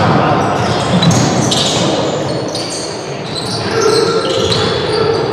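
Noise of a football match in play: the ball being struck and bouncing amid players' and spectators' voices, with many short high-pitched squeaks or shouts.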